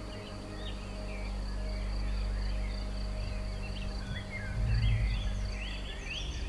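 Small birds chirping and singing in short quick notes, with a run of rising calls near the end, over a faint steady high insect-like tone and a steady low hum.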